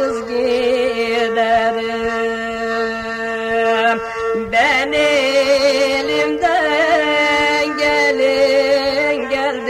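Turkish folk music: a steady drone holds under a wavering, ornamented melody, with a quick upward slide about halfway through.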